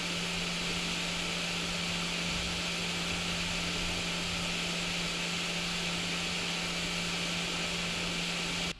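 Creality Ender 3 S1 Plus 3D printer running, its cooling fans giving a steady whirring hiss over a low hum. The sound cuts off abruptly near the end.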